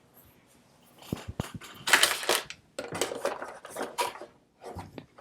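Small plastic and paper items handled by hand: a few light clicks about a second in, then irregular crinkling and rustling of packaging.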